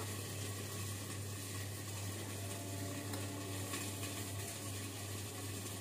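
Faint steady kitchen background: a low hum under an even hiss, with no spoon or bowl knocks.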